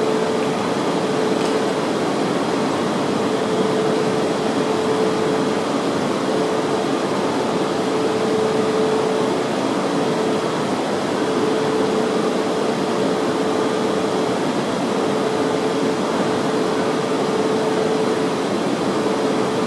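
E4-series Shinkansen at the platform with its equipment fans and air conditioning running: a steady whirring hum with a faint held tone that fades in and out.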